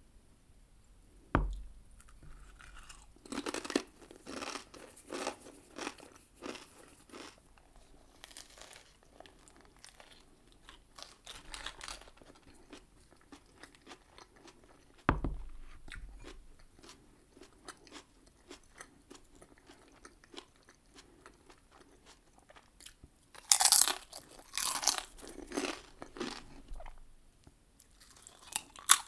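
Close-miked eating of a KFC Twister wrap: biting and crunchy chewing in rhythmic runs, loudest near the end. There are two sharp knocks with a low thud, one about a second and a half in and one midway.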